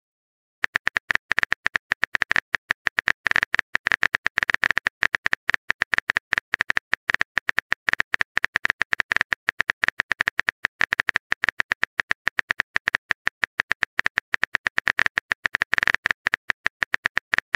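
Phone-keyboard typing clicks: a sound effect of a text message being typed out, brisk even taps several a second, starting about half a second in.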